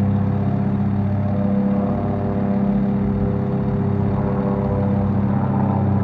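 Fire ladder truck's diesel engine idling steadily, an even low drone that holds the same pitch throughout.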